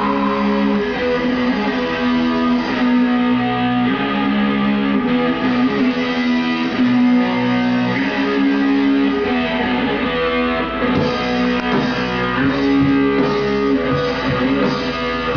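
Rock music led by electric guitar, playing steadily.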